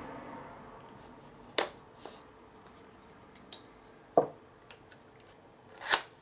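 Knife box packaging being handled and opened: scattered sharp clicks and taps, with a louder knock about four seconds in and a short scrape near the end.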